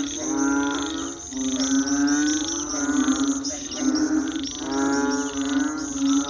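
Chorus of frogs and toads calling at night, overlapping pitched calls that swell and fade in waves, with insects chirping in quick pulses above them.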